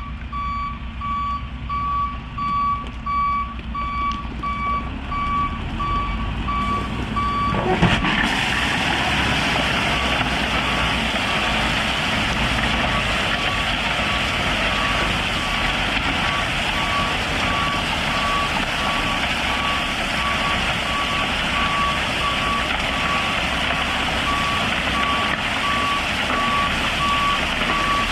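Dump truck's reversing alarm beeping steadily over the running diesel engine as it backs in. About eight seconds in, a loud, steady rushing noise joins and runs on: crushed rock pouring out of the bed as the truck back-spreads its load.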